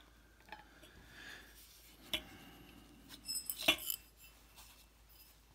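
Light clicks and clinks of small metal parts and tools being handled on a workbench, scattered and faint, with a short cluster of sharper clinks a little after halfway.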